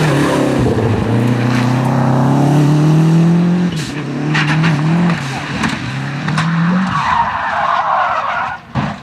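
Rally car engine revving hard, its pitch climbing and falling back several times through gear changes. Tyres skid and scrub for about a second and a half near the end.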